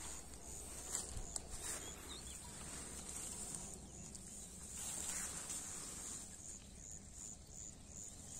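Field insects trilling steadily at a high pitch, with a chirp repeating about two or three times a second, and a light rustle of chilli plant leaves brushed by a hand now and then.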